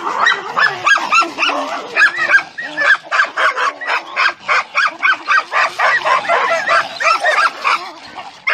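Dogs barking over and over during rough play, the barks jumbled together at first, then coming in a quick, even run of about three a second.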